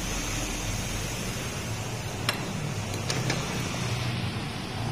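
Steady machine hum, like a fan or motor running, with a few light clicks a little over two seconds in and around three seconds in.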